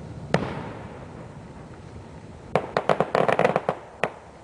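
Aerial firework shell bursting with one sharp bang that trails off in an echo, followed a couple of seconds later by about a second of rapid crackling pops and one last single pop.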